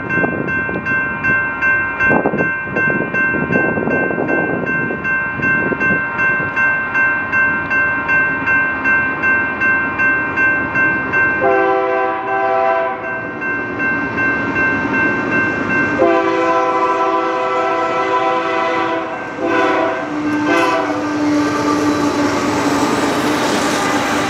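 Grade-crossing bell ringing about twice a second while a train's horn sounds two long blasts and two short ones. The train then comes through, with rising wheel and rail noise.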